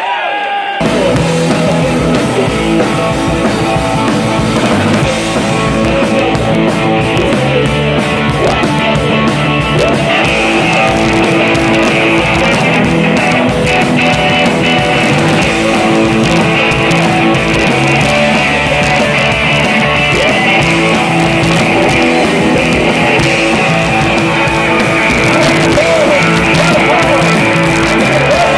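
Live rock band playing loudly on electric guitars and drums, kicking in abruptly about a second in.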